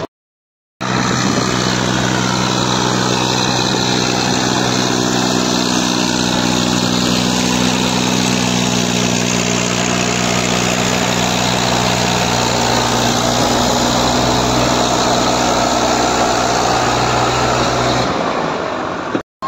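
Diesel farm tractor engine running at steady revs under load while it pulls a trolley heaped with soil. The sound cuts in abruptly just under a second in and changes near the end.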